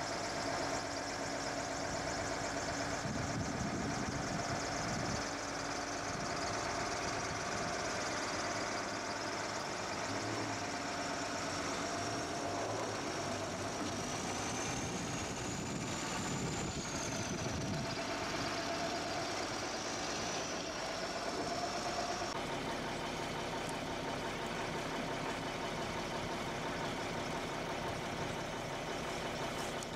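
Truck engine running steadily as the rig hauls a heavy sailboat on its trailer, with a high whine over it that rises and falls and stops about two-thirds of the way through.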